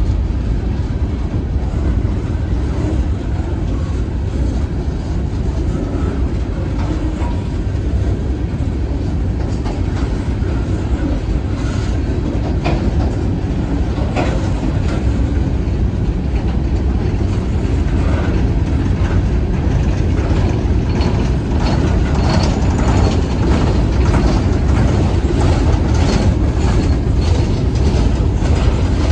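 A train rolling past: a steady low rumble from its wheels on the rails, with clicks as the wheels cross rail joints. The clicks come more often and a little louder in the second half.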